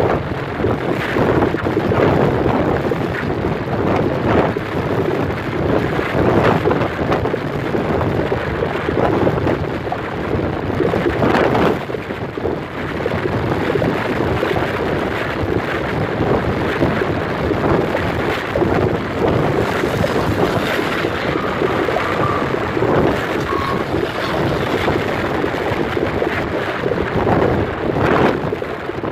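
Wind buffeting the microphone over the steady road noise of a car driving at speed, heard from inside the car, with frequent gusts.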